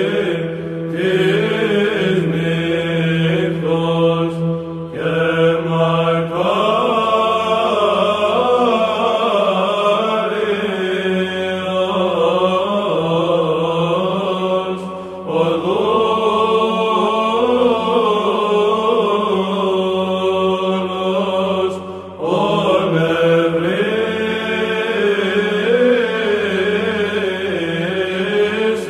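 Byzantine choir chanting, with melodic lines moving over a steady held low drone note. There are three short pauses between phrases.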